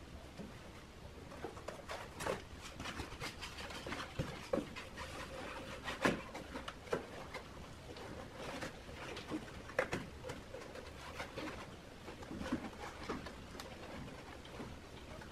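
Cardboard egg trays and plastic sheeting being handled and pressed into place, giving irregular light taps, rustles and crackles.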